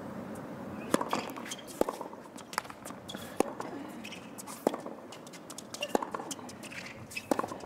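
Tennis rally on a hard court: the sharp pops of racket strikes and ball bounces, about one a second, starting with the serve.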